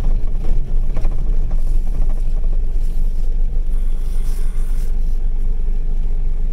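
A car driving on a snowy road: a steady, low road and engine rumble.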